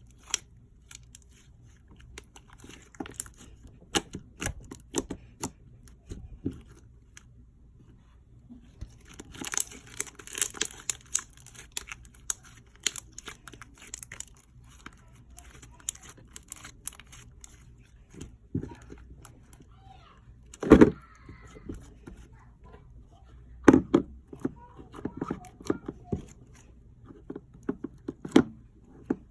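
Slime being played with by hand: irregular crackling and popping clicks, denser for a couple of seconds about a third of the way in, with a few louder knocks later on.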